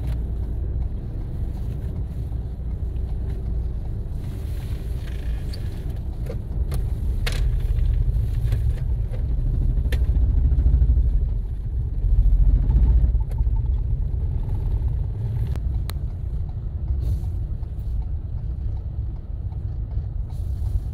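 Low rumble of a vehicle driving slowly through a ferry's vehicle deck and down its ramp, heard from inside the vehicle, with a few sharp knocks along the way; the rumble swells for a few seconds midway.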